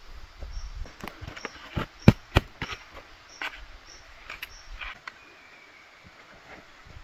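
Insects chirping, a short high chirp repeating about once a second, then a thin steady trill near the end. Over the first five seconds comes a run of sharp knocks and rustles, the loudest two close together about two seconds in.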